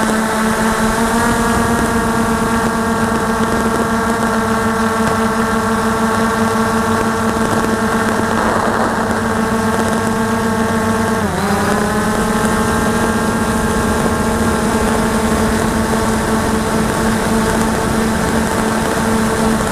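Ghostdrone 2.0 quadcopter's motors and propellers buzzing steadily in flight, a loud hum with a stack of overtones. About eleven seconds in, the pitch dips briefly and then climbs back as the motors change speed.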